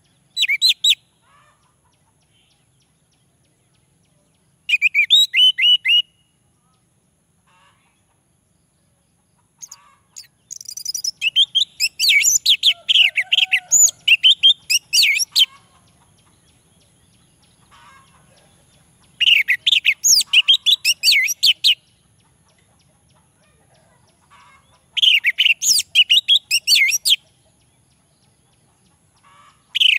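Male orange-headed thrush singing in five separate phrases of rapid, varied high notes with pauses between, the longest a run of about five seconds near the middle.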